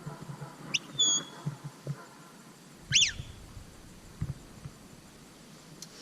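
Shepherd's whistle commands to a working sheepdog: a short rising whistle, then a held high whistle about a second in, and a sharp sweeping whistle about three seconds in.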